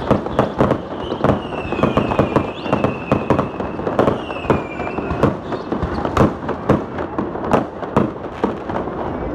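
Aerial fireworks going off in quick succession: a dense run of bangs and crackling bursts, several a second, with a high whistle for a few seconds about a second in.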